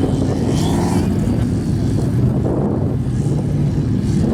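Formula offroad race truck's engine running loud, its pitch shifting up and down as it revs.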